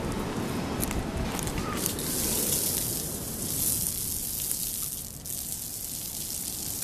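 Water spraying from overhead outdoor showers and splashing onto a concrete floor, a steady hiss that eases about five seconds in.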